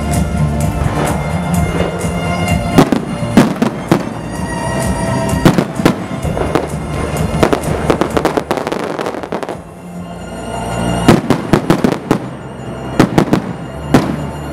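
Aerial fireworks shells bursting in quick succession with sharp bangs and crackle, over music. The bursts thin out briefly past the middle, then come back as clusters of bangs toward the end.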